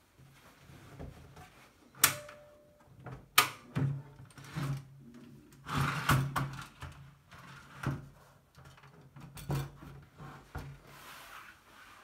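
A 1952 Rooy portable typewriter being unfolded from its flat case: a sharp metal click about two seconds in with a brief ring after it, another a second and a half later, then a run of clunks, scrapes and clicks as the metal body and case parts swing and lock into place.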